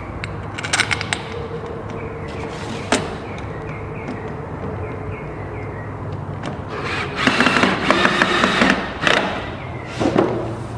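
Screws being driven into the aluminium door frame of a greenhouse, with a few sharp metal clicks, then scraping and rattling of the aluminium frame pieces being handled from about seven seconds in, over a steady low hum.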